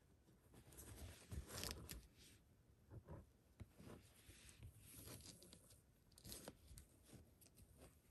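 Faint scratchy rustling of thread being pulled through knotted loops and fabric being handled during hand-stitching, coming in short irregular bursts.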